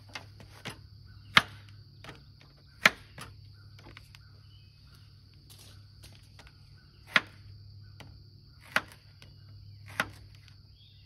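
Knife slicing a zucchini on a plate: about eight sharp clicks at uneven intervals as the blade cuts through and meets the plate, with a gap of a few seconds in the middle. Steady insect chirring runs underneath, with a faint low hum.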